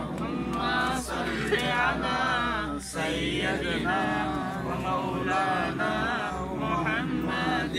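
A group of men's voices chanting together in unison in a devotional recitation, with a short break for breath about three seconds in.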